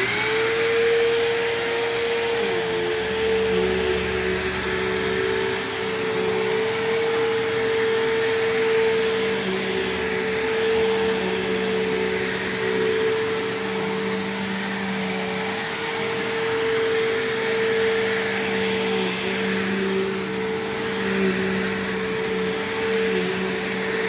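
Bissell PowerTrak Revolution upright vacuum switched on, its motor rising to speed within about a second, then running steadily with a constant whine as it is pushed over carpet. The owner calls its motor a little funky, not bad but not good either.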